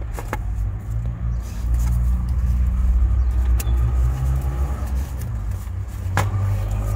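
Low, steady rumble of a motor vehicle's engine running, swelling for a couple of seconds in the middle, with a few sharp clicks over it.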